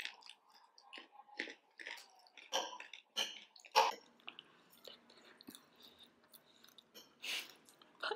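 Close-up eating sounds: spicy instant noodles slurped in and then chewed along with momo, as a run of irregular wet smacks and squelches, with a few louder slurps or smacks about a third of the way through and near the end.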